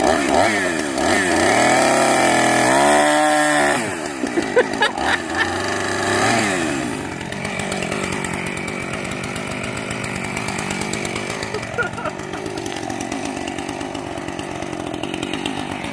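Gas chainsaw cutting the legs off a pig carcass, its engine revving up and down again and again. About seven seconds in it settles to a lower, steadier run.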